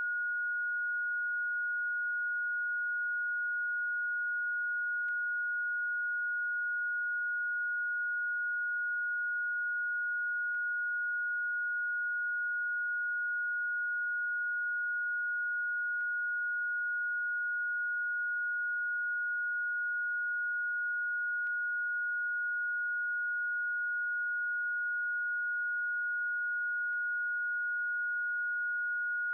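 Electronically generated Rife-frequency sine tone: a single steady high-pitched tone that does not change in pitch or loudness, with very faint clicks about every five and a half seconds.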